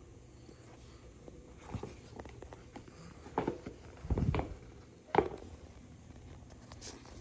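A few irregular soft thuds and knocks, the loudest a low thud about four seconds in and a sharp knock about a second later.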